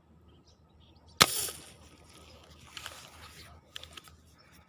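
A single shot fired at a fish: one sharp snap about a second in, followed by a short noisy wash. A few faint clicks follow.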